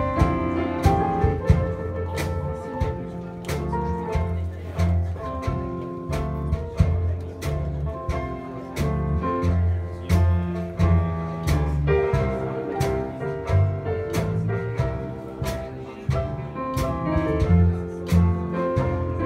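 Traditional New Orleans jazz band playing an instrumental chorus: cornet, clarinet and trombone over a plucked string bass, with banjo, piano and drums keeping a steady beat.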